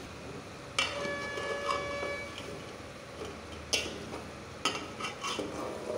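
Metal spoon stirring curry in an aluminium pot, knocking and scraping against the metal. The first knock, about a second in, leaves the pot ringing for over a second, and a run of sharper clacks comes near the end, over a faint steady sizzle from the pot.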